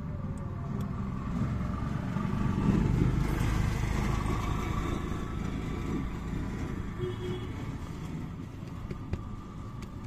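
A motor vehicle passing by: a low rumble that swells about two seconds in and fades away over the next few seconds. A single sharp click near the end.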